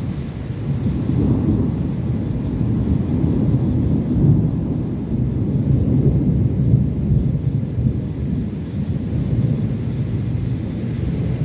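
Thunderstorm: a low, continuous rolling rumble of thunder that rises and falls unevenly, with no sharp cracks.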